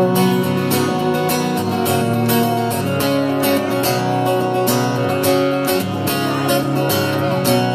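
Acoustic guitar strummed in a steady, even rhythm of chords.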